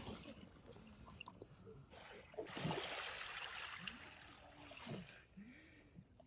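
Water trickling and splashing as wet firefly squid are handled over a mesh scoop net. The sound is loudest in the middle.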